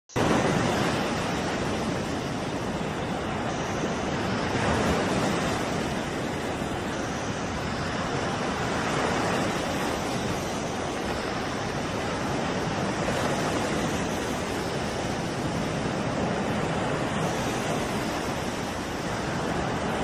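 Heavy seas breaking against a ship's side and washing across its deck: a dense, steady rush of water that swells every few seconds.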